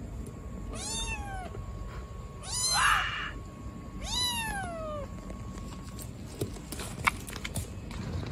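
Black kitten meowing loudly: three drawn-out meows about a second and a half apart, each falling in pitch at the end, the second the loudest and roughest. A few short sharp clicks come about six to seven seconds in.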